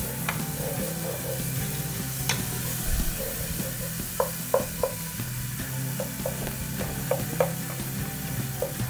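A tomato-and-spice masala cooking in a pot on a gas stove, stirred with a wooden spoon that knocks against the pot a number of times, most of them in the second half. A steady low hum runs underneath.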